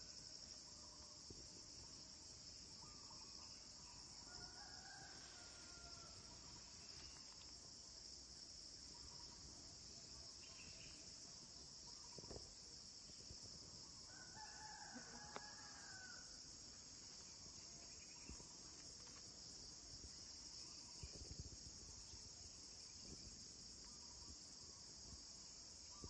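Faint outdoor ambience of a steady, high-pitched insect chorus of crickets or cicadas, with a rooster crowing in the distance twice, about four seconds in and again near the middle.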